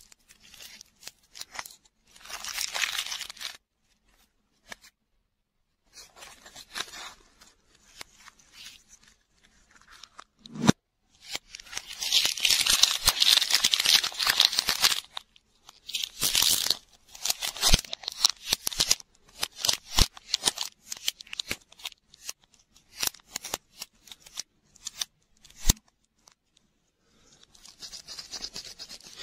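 Thin plastic wrapper being torn and peeled by hand off a ball-shaped toy lollipop: crinkling, tearing bursts, the longest about halfway through, with short gaps and small ticks between.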